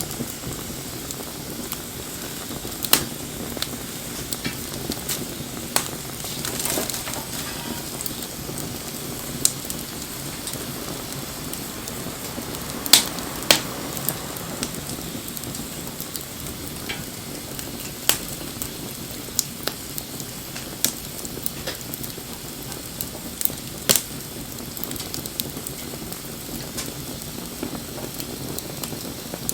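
Wood fire burning: a steady low rumble and hiss broken by sharp, irregular crackles and pops, a few of them loud.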